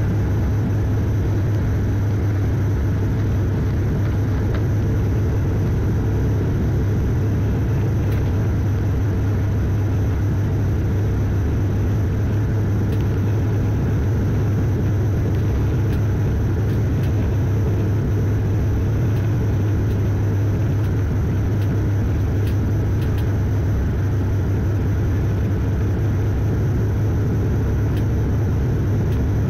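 Cabin noise of a turboprop airliner on approach to land: a steady low drone from the propellers over a constant rush of air, unchanging throughout.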